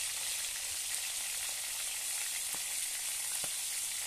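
Oil sizzling steadily in a steel kadai as pieces of food deep-fry, with a few faint pops.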